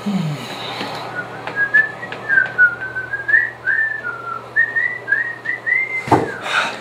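A person whistling a tune: a run of short notes that slide up and down, ending about six seconds in, followed by a short burst of noise.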